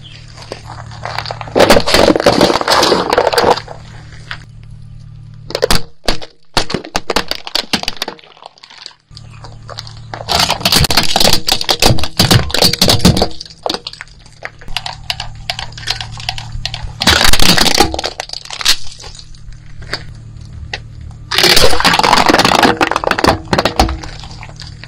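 A car tyre rolling over and crushing plastic toys and other objects on asphalt: about five separate bouts of cracking, snapping and crunching, each lasting a second or two, over a steady low hum.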